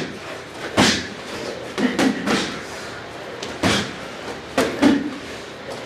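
Boxing-glove punches landing during sparring: a series of sharp slaps and thuds about a second apart, some coming in quick pairs.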